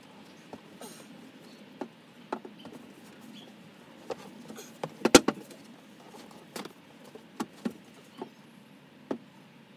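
Scattered small clicks and knocks of hands handling tools and small hardware, with one sharper knock about five seconds in.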